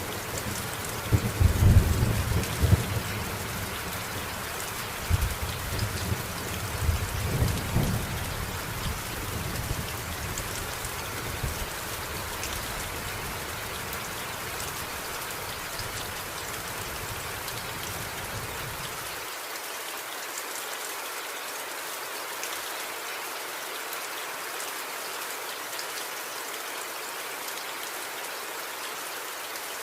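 Steady rain pattering, with rolls of thunder rumbling loudly early on and again a few seconds later, then fading away. About two-thirds of the way through, the low rumble cuts off suddenly, leaving the rain alone.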